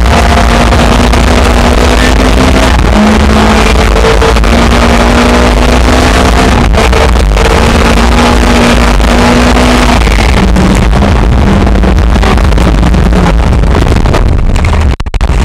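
Lexus IS200 rally car heard from inside, driven hard on a snowy stage: loud, steady engine and road noise that overloads the recording, the engine's pitch holding steady for stretches. Near the end the sound drops out sharply for a moment.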